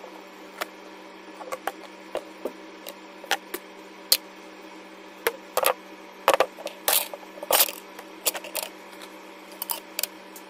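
Hard objects being set down and handled on a tabletop: a hacksaw, plastic jar lids, tape rolls and cardboard tubes. They give irregular clicks and knocks, the loudest ones clustered a little past halfway, over a steady low hum.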